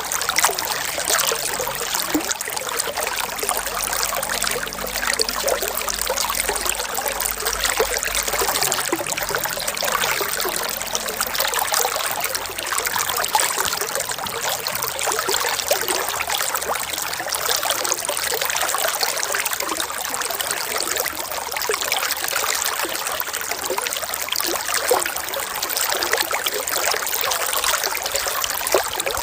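Running water trickling and splashing steadily, an even hiss with no pauses.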